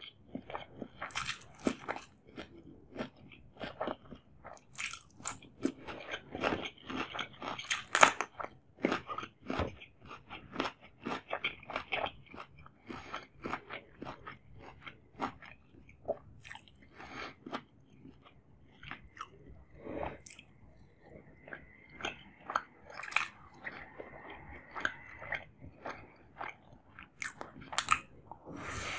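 Close-miked biting and chewing: crisp crunches of raw cucumber slices mixed with softer chewing of chicken dum biryani eaten by hand, in a quick irregular run of crunches.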